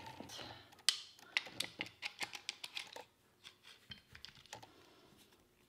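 Light metallic clicks and clinks of a Tormek gouge jig being handled and clamped onto a wooden-handled turning gouge, a quick run of clicks in the first second and a half, then scattered fainter ones.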